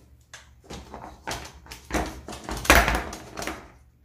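Metal springform cake pan being unclipped and its side ring lifted off: a run of light clicks and knocks. The loudest clatter, with a dull thump, comes about three quarters of the way in.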